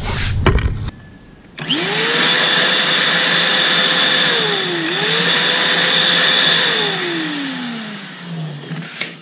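Wet-and-dry vacuum cleaner used as a blower: it switches on with a quickly rising motor whine, runs steadily with a brief dip in speed about halfway, then is switched off and winds down with a long falling whine. It is blowing air into the scooter's engine to push the last of the old oil out of the crankcase.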